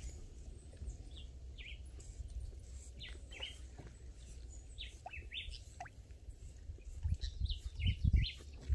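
Scattered short bird chirps and quick falling calls over a steady low rumble, with a few low thumps near the end.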